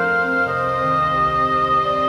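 Slow instrumental background music of long held notes, with the pitch shifting every second or so.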